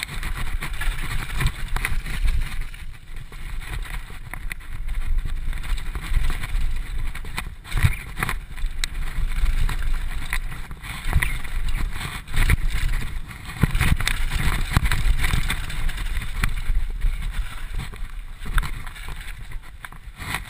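Mountain bike ridden fast down a rough dirt trail: a steady low rumble of tyres and wind on the mounted camera, broken by frequent knocks and rattles as the bike hits bumps.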